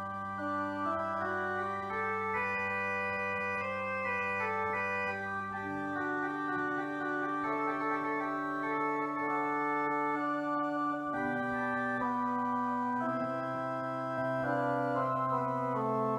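Pipe organ playing sustained chords over long held pedal notes, the upper voices moving while the bass note changes about six seconds in and again near eleven seconds.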